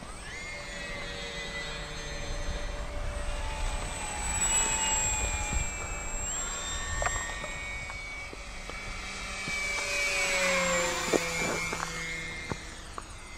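Small radio-controlled biplane's motor and propeller whining in flight, the pitch stepping up and down with the throttle. It grows louder and sweeps past close by about ten seconds in.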